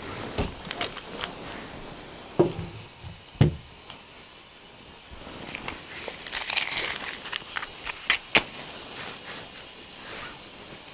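Scattered knocks and rustling: two dull thumps about two and a half and three and a half seconds in, a crackling rustle around six to seven seconds, then two sharp clicks in quick succession.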